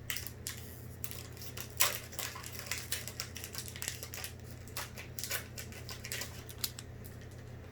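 Pokémon TCG booster pack's foil wrapper being crinkled and torn open by hand: irregular crackling, the sharpest crackle about two seconds in, over a steady low hum.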